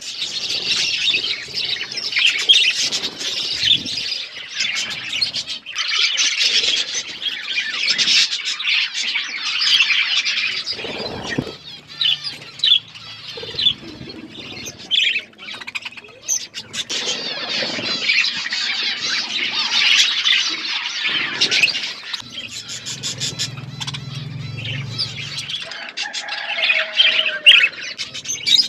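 A flock of budgerigars chattering and warbling continuously, dipping into thinner stretches twice.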